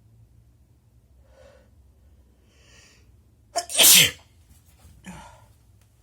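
A person sneezes once, loudly, a little past the middle, with a sharp catch just before the main burst and the pitch falling through it. Faint breaths come before it, and a short breath or sniff follows about a second after.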